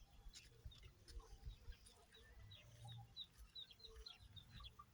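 Faint bird chirping: a run of short, high chirps, a few a second, starting about a second in and going on to near the end.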